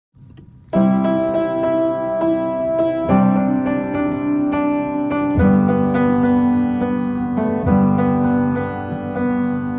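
Background music: electric piano chords, a new chord about every two and a half seconds, starting under a second in.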